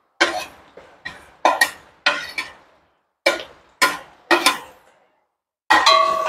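Cookware knocking as raw shrimp are scraped off a plate with a wooden stick into a metal wok: about a dozen sharp, uneven knocks, one or two a second. A louder clatter near the end leaves a brief metallic ring.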